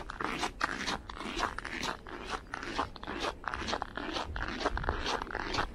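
Footsteps crunching on packed snow in deep cold, about −17 °C, at a steady walking pace of about two steps a second.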